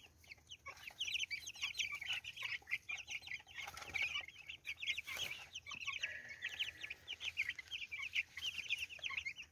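A flock of young meat chickens (chicks) peeping continuously, many short high chirps overlapping.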